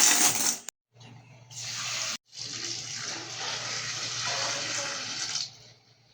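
Water running from a kitchen tap, heard as a few separate stretches of steady running that start and stop abruptly. The longest stretch begins about two seconds in and fades near the end.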